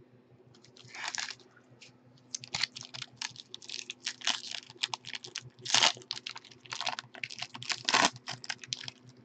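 Foil trading-card pack wrapper crinkling and crackling in quick, irregular bursts as it is handled and torn open by hand.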